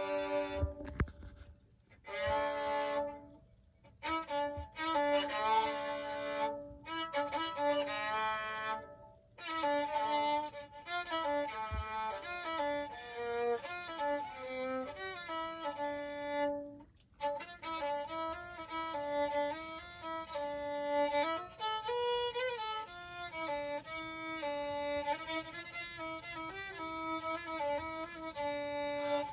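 Music: a violin playing a melody, with a few short breaks between phrases.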